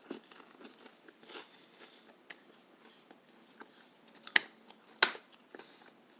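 A person biting and chewing a crunchy snack: scattered small crunches, with two sharp, louder crunches about four and five seconds in.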